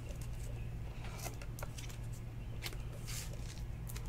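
Faint swishes and soft clicks of a trading card in a plastic sleeve and rigid plastic top loaders being handled, a few scattered brief sounds over a steady low hum.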